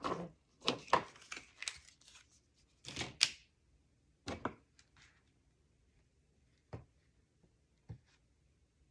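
Paper and cardstock being handled on a tabletop: a quick string of short rustles and knocks over the first few seconds, a couple more a moment later, then a few single light taps.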